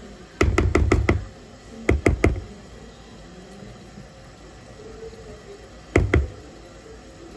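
Sharp knocks on a mixing bowl of cake batter: a quick run of about five, then three, then two near the end.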